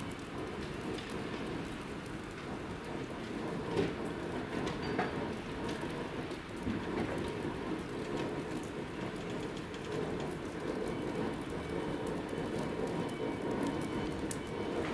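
Steady hiss and patter of rain falling on a wet station platform, with a steady low rumble underneath.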